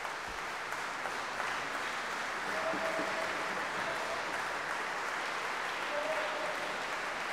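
Concert hall audience applauding steadily after the orchestra's final chord.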